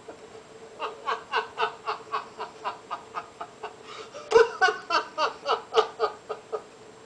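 People laughing at a joke's punchline: a run of rhythmic ha-ha pulses, about four a second, that swells louder about four seconds in.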